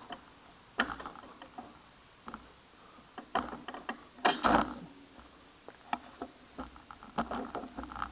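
Scattered, irregular small clicks and knocks, the loudest a brief rattle a little past four seconds in.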